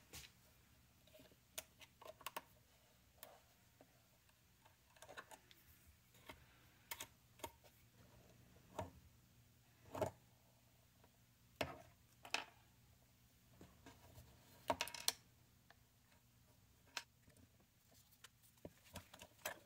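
Small precision screwdriver and hard plastic headphone hinge parts making sparse, irregular clicks and taps as the hinge screw is undone and the hinge taken apart. The loudest tick comes about ten seconds in, and a quick cluster of clicks follows near fifteen seconds.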